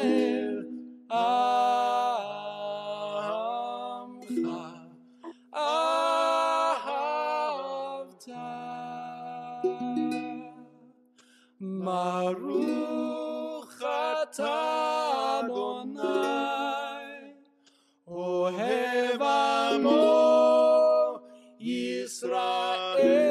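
A recorded song played back over a video call: a singer singing slow phrases of long, held notes over plucked acoustic guitar accompaniment.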